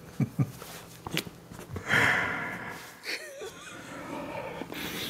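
A man and a woman laughing hard and out of breath, in breathy, wheezy bursts rather than words. There is a loud breathy burst about two seconds in and a short wavering high-pitched sound about a second later.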